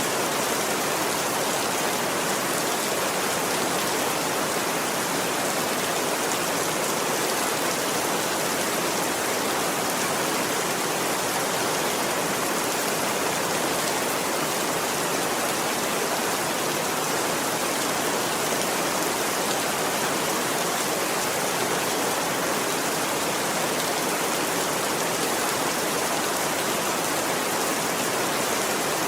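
Steady rain falling, an even, unbroken hiss of many drops with no thunder.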